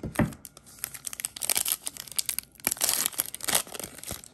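A shiny Donruss Optic football card pack wrapper being torn open and crinkled in the hands: a dense run of sharp crackles and rips, after a soft thump right at the start.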